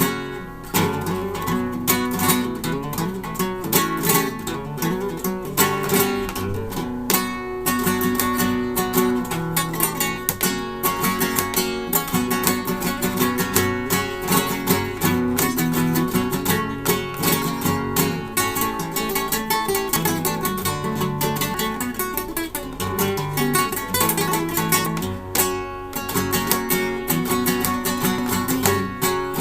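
Solo acoustic guitar playing a fast passage of plucked notes and strummed chords.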